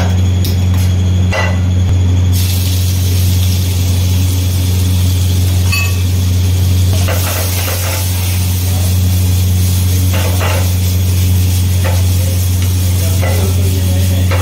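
Steady low machine hum of a commercial kitchen range. About two seconds in, a steady hiss of the gas flame and frying in a wok comes in, with a metal spatula clanking and scraping against the wok several times.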